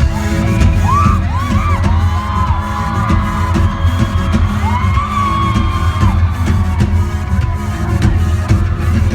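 Live pop music played loud through an arena sound system, with a heavy bass beat and sustained synth tones, and the crowd whooping and screaming over it.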